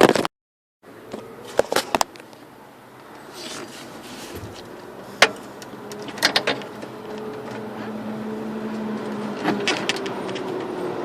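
Scattered sharp clicks and knocks from hands and a screwdriver working a door handle's rod wire inside a car door, over a steady low hum that grows gradually louder. The sound cuts out completely for about half a second just after the start.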